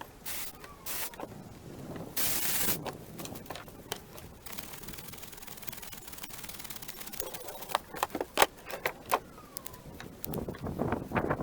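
Irregular knocks, clicks and short rustling scrapes of branches and wood being handled and worked, with one brief louder scraping burst a couple of seconds in and a run of sharp knocks later on.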